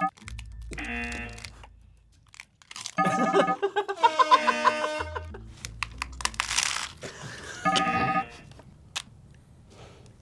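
Crunching and tearing of hard taco shells and food packaging as tacos are assembled, with a noisy crinkling burst partway through. Short pitched sound-effect stings sound over it several times.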